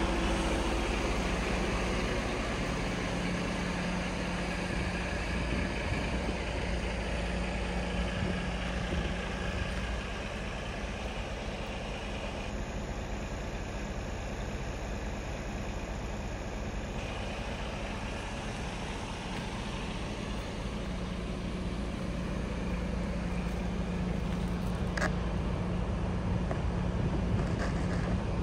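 Mercedes-Benz Arocs 1843 tractor unit's six-cylinder diesel engine running steadily at idle, with a few light clicks near the end.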